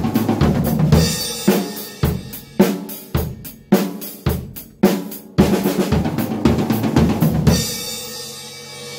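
Acoustic drum kit played: a single-stroke-roll drum fill combined with the basic 1-3 2-4 groove on bass drum, snare and hi-hat, with cymbal crashes. The cymbals ring out and fade over the last second.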